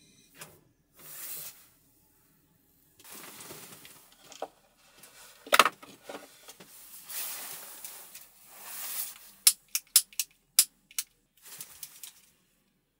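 Things being handled: several short bursts of rustling, one loud sharp click about halfway, and a quick run of sharp clicks and taps near the end.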